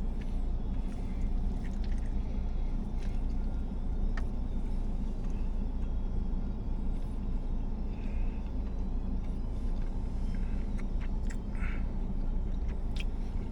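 A person chewing and handling food, with small clicks and rustles, over a steady low rumble.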